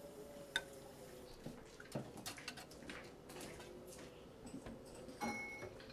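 Quiet room tone with a faint steady hum and a few scattered light clicks and knocks.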